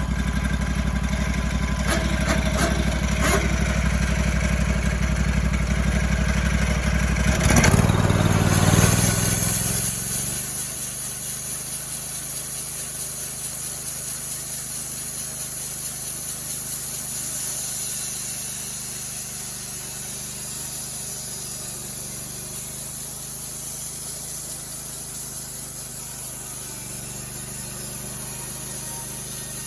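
Homemade sawmill running, its engine loud and steady with a few clicks. About eight seconds in the sound surges, then settles into a quieter steady running with a high hiss.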